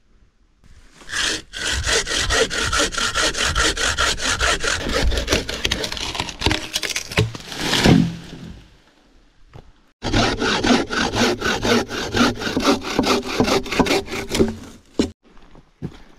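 A hand saw cutting through wood with rapid back-and-forth strokes, in two bouts with a short pause of a couple of seconds between them.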